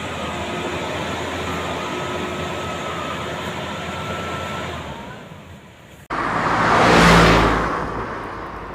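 Combine harvester engine running steadily, fading away about five seconds in. After an abrupt cut, a loud rushing noise swells and dies away.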